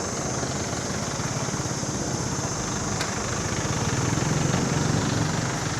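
An engine running steadily at idle, its rumble swelling a little about four seconds in.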